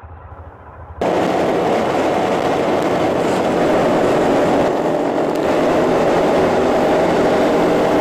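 A motorcycle riding at speed: a steady rush of wind on the microphone with the engine's hum beneath it, starting suddenly about a second in.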